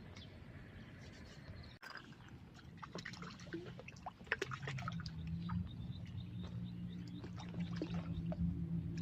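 Water splashing and dripping in short, sharp bursts. A low steady hum of several tones comes in about halfway through and continues.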